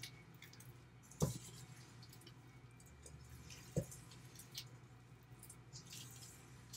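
A spoon stirring wet, sticky oat-and-banana cookie dough in a metal mixing bowl: faint squelching and scraping with small clicks, and two sharper knocks of the spoon against the bowl, about a second in and again just under four seconds in.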